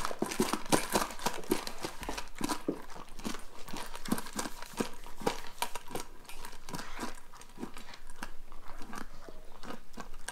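Siberian husky puppy eating fast from a stainless steel bowl: rapid, irregular crunching and chewing, with sharp clicks several times a second.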